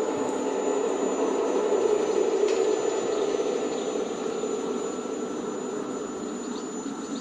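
Experimental electro-acoustic drone: a dense, steady, engine-like noisy rumble with a thin high whistle held above it, slowly getting quieter.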